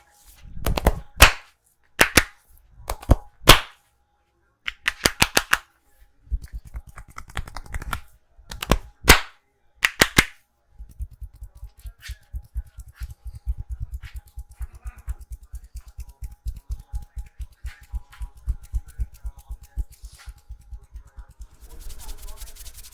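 Percussive hand massage: a series of loud, sharp smacks of hands on the head and shoulders, then from about eleven seconds in a fast, even run of soft thumps as the hands pound in quick succession, with a brief rubbing near the end.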